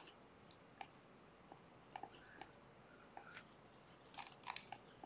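Faint, scattered computer-mouse clicks over near silence, with a few in quick succession about four seconds in.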